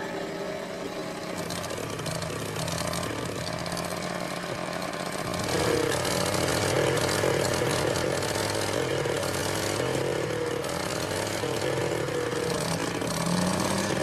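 Small petrol engine of a garden rotavator running steadily, getting louder about five seconds in as the machine works the soil.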